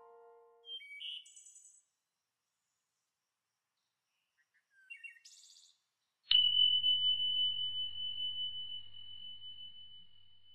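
The last piano notes die away, then two brief clusters of faint chirping electronic sounds. About six seconds in, a sudden high ringing tone with a low hum under it starts and slowly fades over about four seconds.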